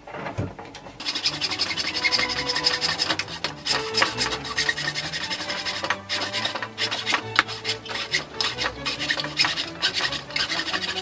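Hacksaw sawing through a plastic pipe held in a vise, starting about a second in with a steady run of back-and-forth rasping strokes.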